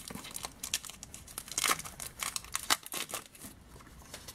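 Blind-box toy packaging being handled and unwrapped: cardboard and plastic crinkling, with irregular crackles and scrapes.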